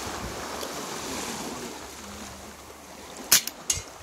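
AR-15 firing Remington subsonic .22 LR, a quiet shot: one sharp crack near the end, followed under half a second later by a second, slightly softer crack. Steady surf and wind noise runs underneath.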